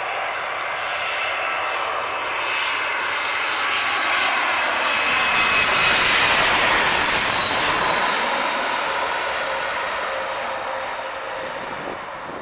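Airbus A319-132 airliner on landing approach, its IAE V2500 turbofans passing close by. The jet noise swells to its loudest about halfway through and then fades, its whine dropping in pitch as the aircraft goes past.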